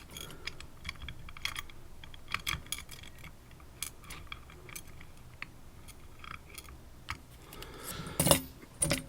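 Light metallic clicks and taps of small lock parts being handled as the padlock's core is taken apart and its pins removed, with a louder handling rustle near the end.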